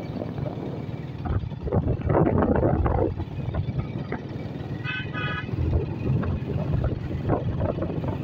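Honda motorcycle engine running steadily while riding, with gusts of wind on the microphone. A horn beeps twice about five seconds in.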